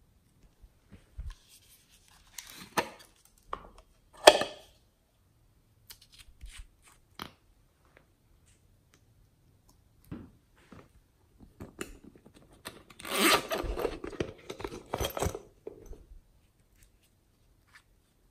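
Hand pressing into glossy slime, making crackling, sticky squishes: a few two to five seconds in, then a longer, louder run from about thirteen to sixteen seconds.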